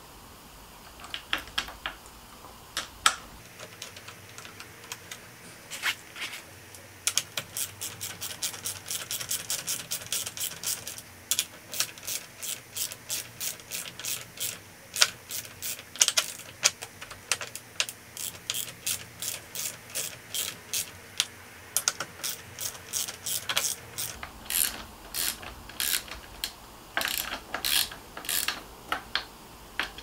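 Small ratcheting bit driver clicking as it turns the mounting bolts of a bicycle's hydraulic disc brake caliper. The pawl clicks come in runs with short pauses between strokes, and are fastest and densest a few seconds in.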